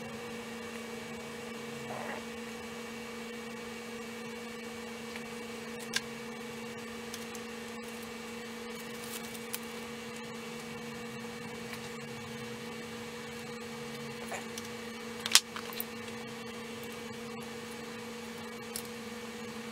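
A steady electrical hum with a fainter high whine above it. Over it come a few light metal clicks of tie wire and pliers as the wire is twisted tight around exhaust heat wrap, the sharpest about fifteen seconds in.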